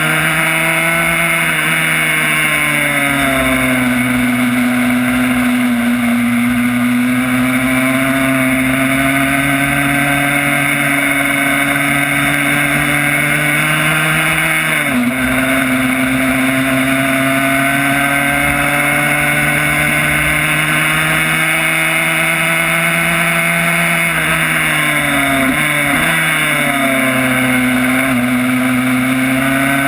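Yamaha YZ85 two-stroke single engine in a Honda RS125 race bike running at high revs on track, its pitch rising and falling with the throttle. About halfway the note drops for an instant and picks up again. Near the end the revs fall in steps, then climb again.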